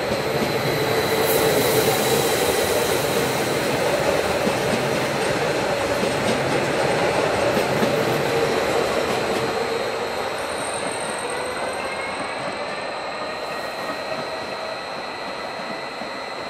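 Electric multiple-unit passenger train rolling past along the platform: steady rumble and wheel-on-rail noise, loudest for the first eight seconds or so, then easing off as the last car goes by. Near the end the wheels give a thin squeal that glides up in pitch.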